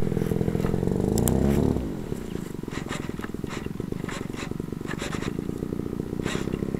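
Small engine running close to the microphone, loud for about the first two seconds, then dropping to a lower, evenly pulsing idle.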